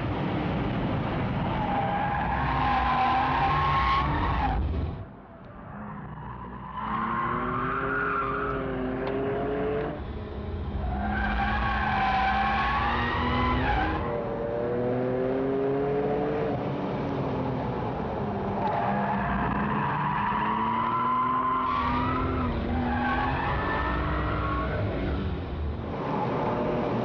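RUF CTR Yellow Bird's twin-turbo flat-six under hard acceleration, its pitch climbing through each gear and dropping back at several gear changes. About five seconds in the engine eases off briefly before pulling hard again.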